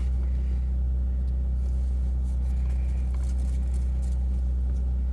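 Car engine idling, heard inside the cabin as a steady low hum, with a few faint clicks and rustles over it.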